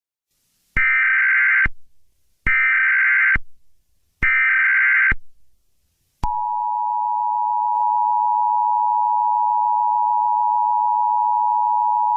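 Emergency Alert System SAME header: three identical bursts of screechy digital data tones, about a second each with short gaps between. About six seconds in, the steady two-tone EAS attention signal starts and holds.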